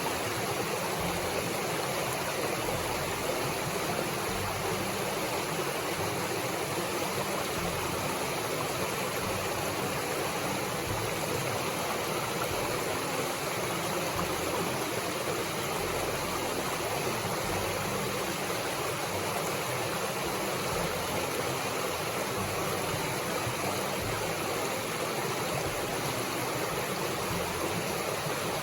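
Steady rush of river water flowing over rocks and small falls, an even, unbroken noise.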